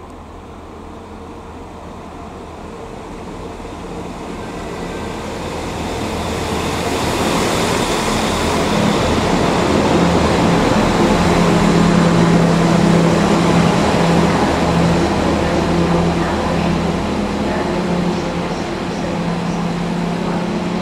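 České dráhy regional multiple-unit train pulling into a station platform. Its running rumble and steady engine hum grow louder as it approaches, peak as it passes close about halfway through, then ease slightly as it slows.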